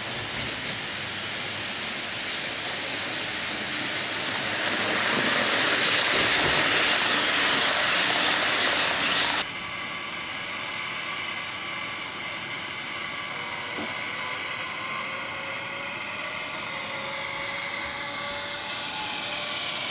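Sound decoder in an HO-scale Tenshodo 500 Series Shinkansen model playing a recorded VVVF inverter sound through its small speaker. A broad hiss swells and cuts off abruptly about nine seconds in. After that a set of whining tones climb slowly in pitch as the train accelerates.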